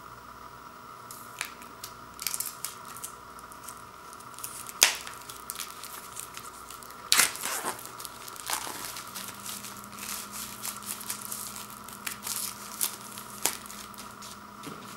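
Plastic shrink-wrap on a CD digipak being torn open and peeled away: irregular crinkling and crackling, with sharp snaps of the film tearing about 5 and 7 seconds in.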